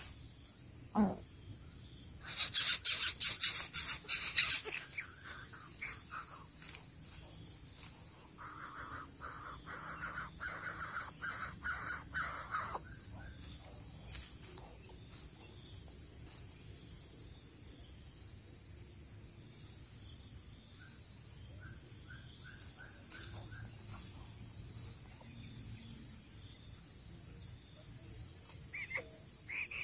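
Coucal chick calling: a loud harsh rattling burst a couple of seconds in, then a run of about a dozen short, evenly spaced calls, and later a fainter run of similar calls, over a steady high insect drone.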